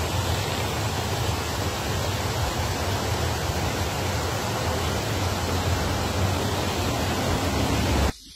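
Steady, loud rush of torrential rain and floodwater, with a deep rumble underneath. It drops away suddenly near the end.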